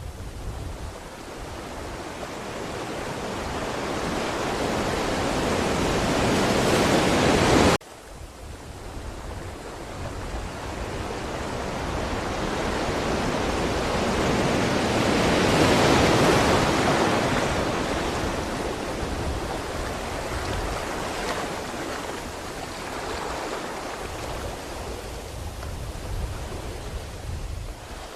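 Ocean waves breaking, one swell building for several seconds and cutting off abruptly about a quarter of the way in, then another swelling to a peak about halfway through and washing back out.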